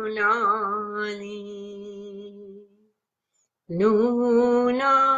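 A woman singing a slow meditation mantra alone, holding a long 'Luna' note with a slight waver. The note fades out about two and a half seconds in, and after about a second of silence she begins the next long 'Luna'.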